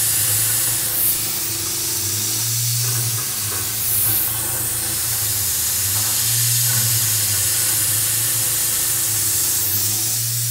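Tormach 440 CNC mill with a 1/8-inch end mill at 1500 RPM cutting hardened S7 tool steel, under a steady hiss from an air-blast nozzle. A low hum swells about every three and a half seconds as the tool comes around its path, with a little chatter that the machinist puts down to chips being recut because the nozzle can't clear them.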